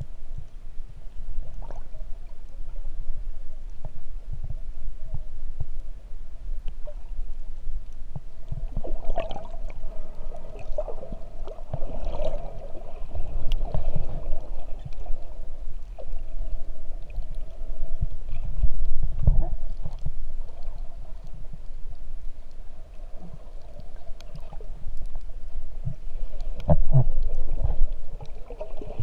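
Muffled water noise picked up by a camera in an underwater housing near the surface: an irregular low rumbling and sloshing that swells and fades, with scattered small knocks and clicks.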